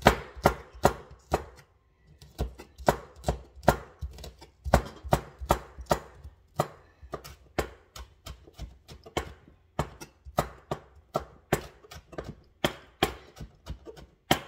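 Kitchen knife chopping half a chile pepper into small pieces: quick sharp knocks about three a second, with a short pause about one and a half seconds in.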